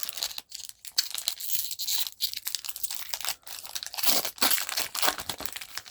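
Pokémon card booster pack's foil wrapper being crinkled and torn open, a dense run of crackling that stops just before the end.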